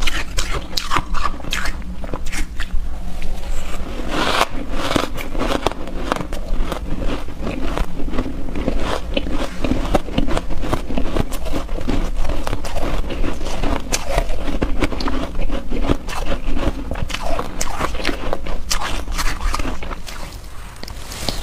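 Close-miked chewing of soft, snow-like shaved ice: a dense, continuous run of small soft crunches, dipping briefly near the end.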